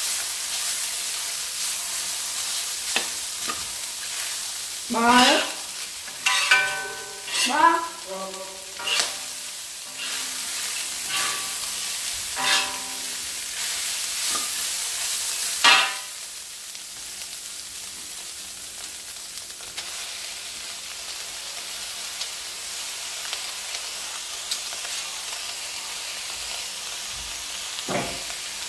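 Minced beef and pork with peanuts sizzling in a wok, stirred and scraped with a metal ladle, with a steady sizzle and occasional clicks of the ladle against the wok. Several short pitched sounds cut in between about 5 and 16 seconds in.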